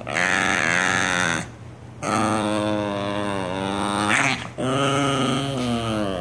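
Small dog vocalizing in three long, wavering calls with short pauses between them. The middle call is the longest, at about two and a half seconds.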